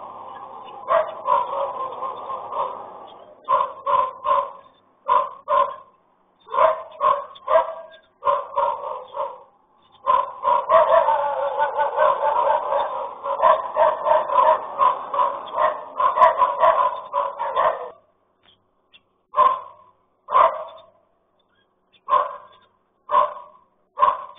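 A dog barking repeatedly: quick runs of barks at first, a long, nearly unbroken run of barking in the middle, then single barks about a second apart near the end. Heard through a security camera's microphone, with the high end cut off.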